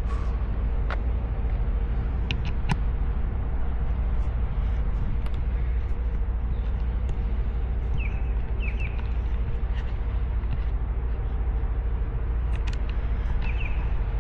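A steady low rumble with a faint hum, a few scattered clicks, and short bird chirps twice in the latter half.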